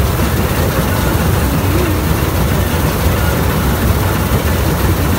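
Combine harvester's engine and threshing machinery running steadily and loudly, heard from the operator's seat while it cuts paddy.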